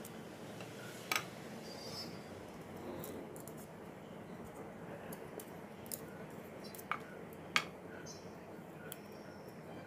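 Small kitchen knife clicking and scraping against a wooden chopping board as jackfruit seeds are peeled: a few sharp clicks, one about a second in and two close together near seven seconds, with lighter ticks between, over faint steady background noise.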